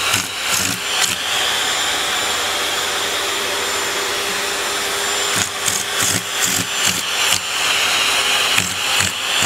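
A vacuum cleaner motor running steadily with a hiss of rushing air. Its sound is broken by a series of short knocks in the first second and again through the second half.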